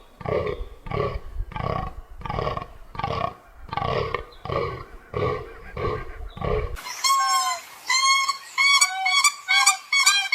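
An animal giving a steady run of about ten deep, roar-like calls, one every second or less. About seven seconds in, the sound cuts to a different, higher whistling chirp repeated in quick succession.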